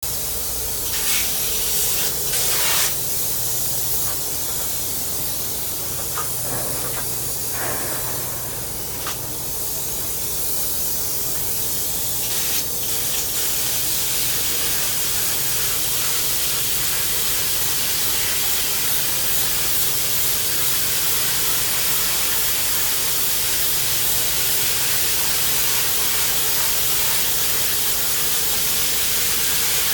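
Spray foam gun hissing as it sprays polyurethane foam insulation. It comes in short bursts over the first dozen seconds or so, then runs as one steady spray, with a faint low hum underneath.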